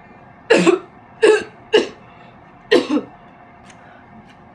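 A woman coughing: four sharp coughs in about two and a half seconds, the last one doubled.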